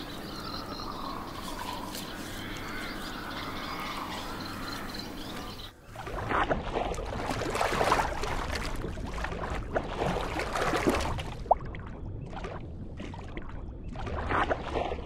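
Lakeside ambience with birds calling, then about six seconds in an abrupt change to water splashing and bubbling, louder and uneven.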